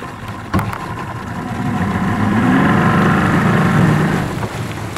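Yamaha VMAX outboard motor running on a bass boat, with a single knock about half a second in; the engine sound swells louder in the middle and eases off near the end.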